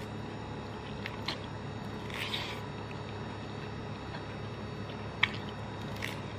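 A person eating instant noodles with chopsticks: a few short wet mouth clicks and a brief slurp about two seconds in, over a steady low hum.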